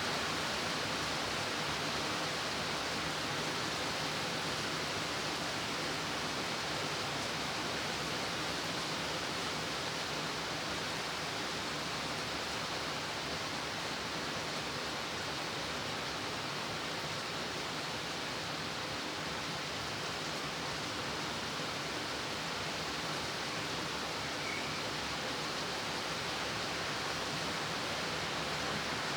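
Steady rain falling: an even, continuous hiss with no distinct drops or changes.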